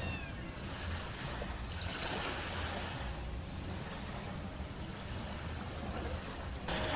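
Steady wind and sea noise with a low, uneven rumble underneath, from open water where a ship is under way. The sound shifts abruptly near the end.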